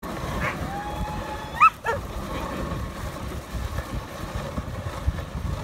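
A sled dog lets out a long whine, then two sharp yelps about a second and a half in. Beneath them runs the steady low rumble of the dog sled moving over snow.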